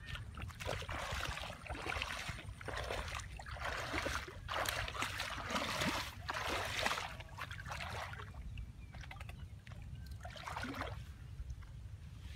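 Water splashing and sloshing in irregular bursts, busiest through the middle, over a steady low rumble.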